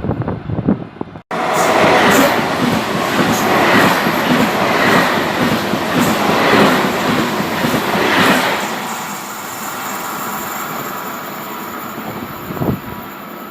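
A train passing through a station: a loud rush of wheels and carriages with a regular clacking as the bogies cross the rail joints. It fades off after several seconds.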